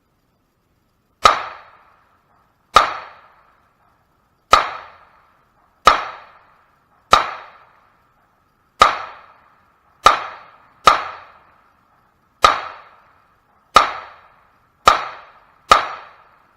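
Semi-automatic pistol fired twelve times in slow, steady succession, about one shot every second or so. Each shot is sharp and loud with a short fading tail.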